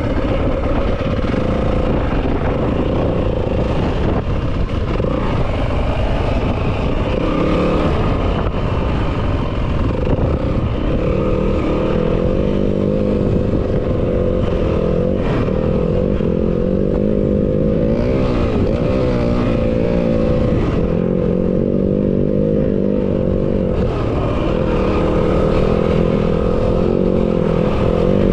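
Yamaha WR250F's 250 cc four-stroke single-cylinder engine running as the dirt bike is ridden, its revs rising and falling with the throttle.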